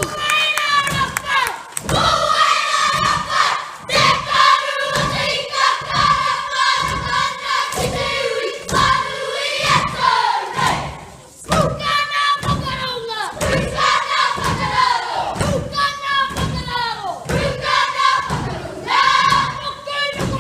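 Children's kapa haka group performing a haka. Many voices chant and shout in unison over a steady beat of stamping feet, with a short break about halfway through.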